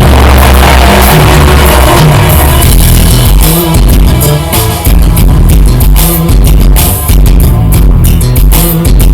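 Loud music with heavy bass played through a speaker system, close to full volume, with a steady beat.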